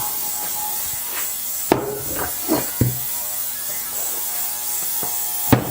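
Bicycle tyre being worked onto the wheel rim by hand: rubbing and handling noise with two sharp clicks, one about two seconds in and one near the end.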